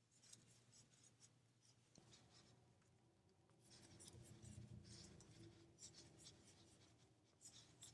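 Near silence, with faint scratchy rustling and ticking of yarn pulled through with a metal crochet hook as single crochet stitches are worked.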